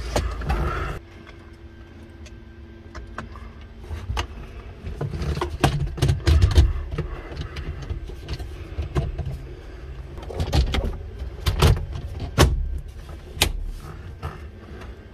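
Plastic dash trim bezel of a Daihatsu Hijet mini-truck being handled and pressed back into the dash: a series of sharp plastic clicks and knocks as it is fitted, with a low rumble underneath.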